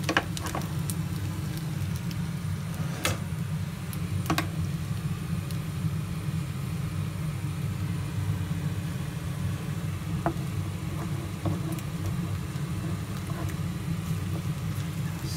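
Wooden spoon stirring beaten egg into fried rice in a frying pan, with a few knocks of the spoon against the pan, over a steady low hum.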